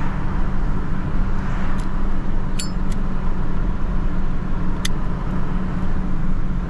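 Car being driven: a steady low rumble of engine and road noise inside the cabin, with a few short sharp clicks between about two and five seconds in.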